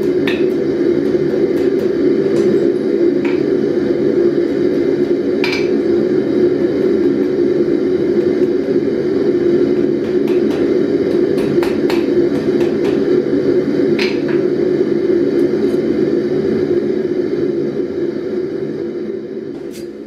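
Ball-peen hammer striking a hot twisted steel bar on an anvil, a handful of irregular, spaced-out blows, over a loud steady low drone.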